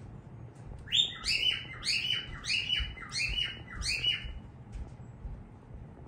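Rosy-faced lovebird chirping: a quick run of about ten sharp chirps, about three a second, starting about a second in and stopping after some three seconds.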